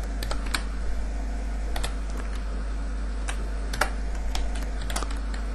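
Keystrokes on a computer keyboard, a dozen or so sharp clicks at irregular intervals, over a steady low hum.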